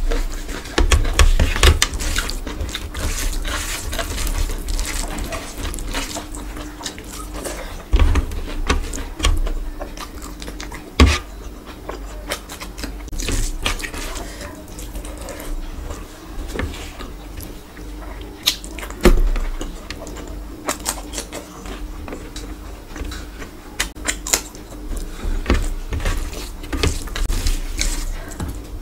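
Wet squelching and crackling of a bare hand mixing rice with curry gravy on a metal tray, with close-up eating sounds, and sharp knocks about 11 and 19 seconds in.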